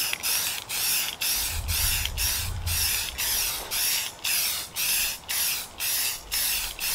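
Aerosol spray paint can hissing in short, quick bursts, about two a second, laying down a base coat.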